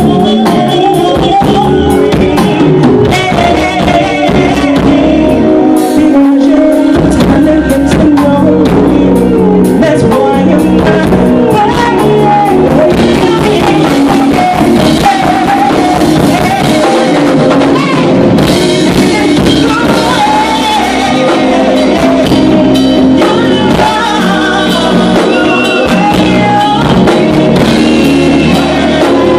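Live band music, loud: several singers singing together over a drum kit and the rest of the band.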